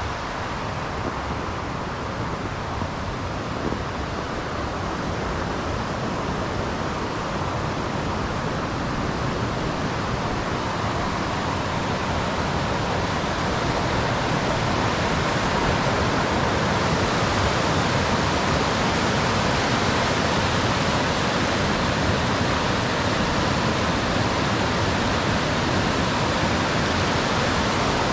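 Waterfall rushing steadily, a continuous noise of falling water that grows louder a little past halfway through.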